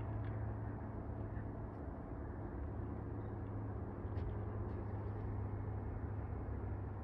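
Steady distant drone of a Cessna 182R Skylane's six-cylinder piston engine and propeller as the aircraft flies its landing approach.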